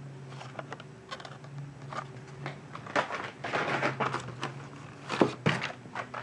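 Hand rummaging in a cardboard shipping case of carded Hot Wheels cars: plastic blister packs and card backs rustling and clicking against each other and the box, with two sharper knocks a little after five seconds in.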